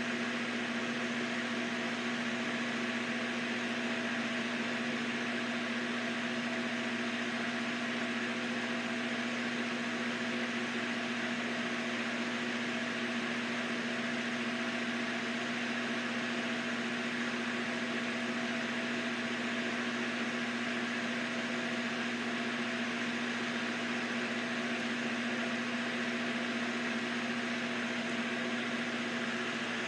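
Old electric fan running steadily: a constant low motor hum over an even rush of air.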